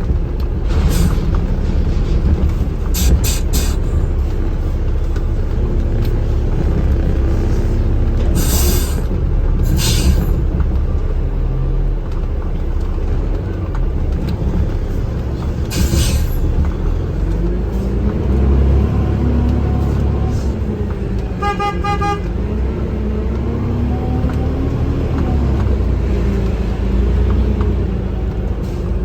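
Engine and road noise heard inside a moving vehicle, a low steady rumble whose engine note rises and falls as it speeds up and slows. A few sharp clicks or knocks come in the first half, and a short, pulsing horn-like tone sounds about two-thirds of the way through.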